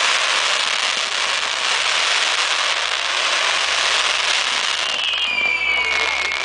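Fireworks display: a dense, steady crackle of sparkling shells bursting overhead. About five seconds in, a whistle joins it, falling in pitch.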